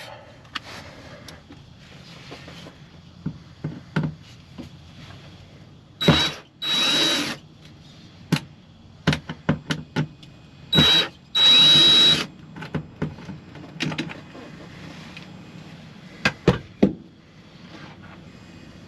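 Power drill run in two spells, each a quick blip followed by about a second of steady whir, with scattered clicks and knocks of tools and parts being handled in between.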